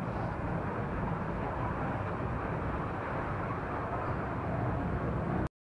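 Steady rushing, rumbling noise of a fairground ride car in motion. It cuts off abruptly near the end.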